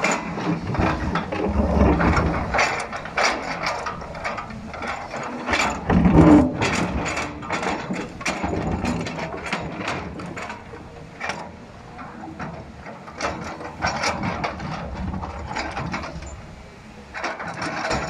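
JCB excavator at work on earth and rock: a busy run of irregular metallic clanks, rattles and scrapes, thickest in the first half, with a heavier thud about six seconds in.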